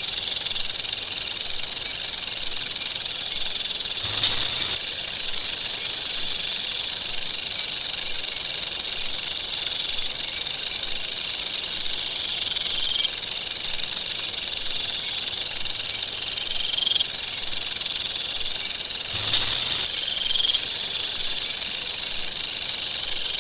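Rattlesnake rattling its tail: a continuous, high, dry buzz that swells louder twice.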